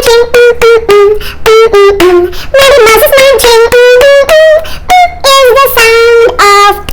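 A woman singing a short, rhythmic children's phonics song about the letter M sound, in short notes with some held ones.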